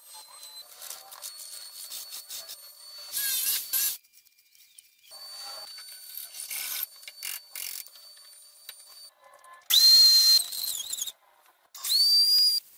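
Woodworking tool sounds in quick succession: a hacksaw cutting a small pine block, then a drill motor whining up to speed twice near the end as it bores into wood.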